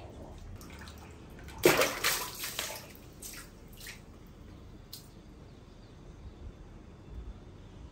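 Water splashing and sloshing as a small pet monkey moves about in it. The splashes are loudest about a second and a half in, then die away into a few drips.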